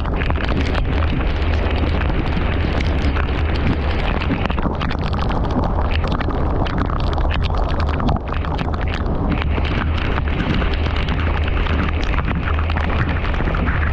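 Heavy rain on a car driving through city traffic. A steady rushing noise is dotted with many small sharp taps, over a constant low rumble from the car's road and engine noise.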